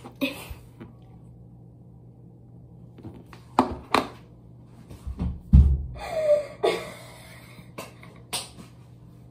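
A girl laughing hard in short bursts between quiet stretches, one burst with a sliding squeal-like pitch. A heavy thump about five and a half seconds in is the loudest sound.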